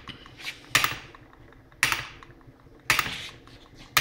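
Solenoid-powered model hit-and-miss engine running: the solenoid fires with a sharp metallic clack about once a second, four times, each clack dying away quickly, with faint ticking from the turning engine between.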